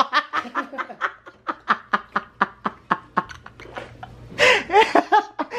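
A man laughing: a quick run of breathy snickers, about five a second, breaking into fuller voiced laughter near the end.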